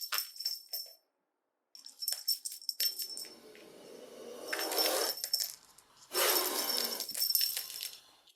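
Recorded snake sounds: a rattlesnake's rattle buzzing in rapid clicks, cut off by a moment of dead silence about a second in, then more rattling and two long hisses.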